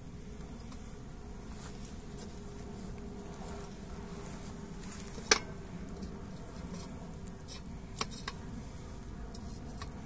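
Twigs being pushed by hand into a small tin-can wood stove: two sharp clicks about five and eight seconds in, over a steady low buzz.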